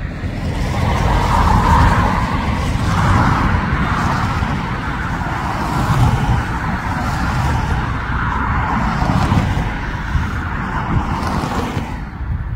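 Jet airliner engine noise as an aircraft passes: a steady, noisy rush with a low rumble underneath, swelling and easing a little, then cutting off sharply near the end.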